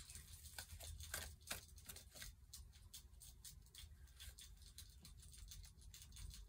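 Faint, soft clicks and rustles of tarot cards being handled, many small ticks scattered over a low room hum.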